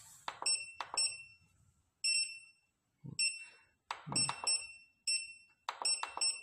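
Front-panel button beeps of a KUAIQU R-SPS6020C bench power supply: about ten short, high-pitched beeps at irregular spacing, each with a sharp click of a key or knob being pressed while settings are adjusted.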